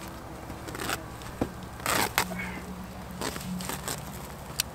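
Burlap wrapping being cut with scissors and pulled off a balled tree root ball: irregular crunchy rustling and scraping, loudest about two seconds in, with a sharp click near the end.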